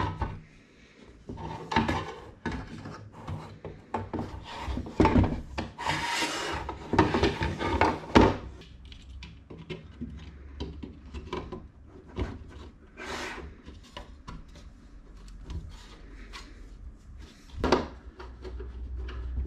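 A NAS's metal casing being slid back over its circuit board and panels being fitted, making scraping and rubbing with many small knocks and clicks, busiest in the first half. Near the end a screwdriver drives a case screw back in.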